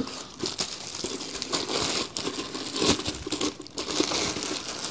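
Clear plastic packaging crinkling and rustling with many small crackles as a plastic dosing container is pulled out of its wrapping.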